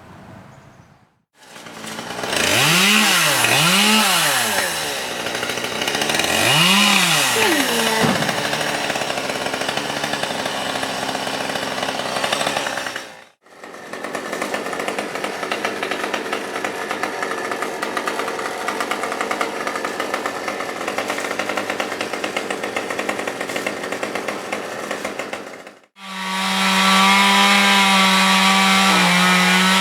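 Two-stroke chainsaw, revved up and down twice, then cutting steadily, then running at a high, steady pitch. The shot changes abruptly twice, each time with a sudden break in the sound.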